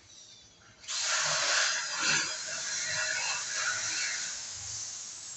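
TIG welding arc hissing, starting suddenly about a second in and slowly fading over the next few seconds. The torch is run without shielding gas because the gas cylinder valve was left closed, and the metal burns through.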